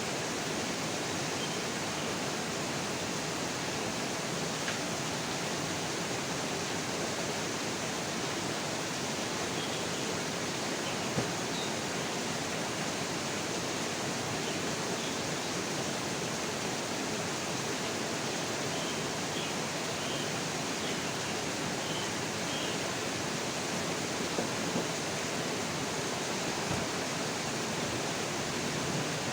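Steady rain falling, an even hiss with a couple of faint taps.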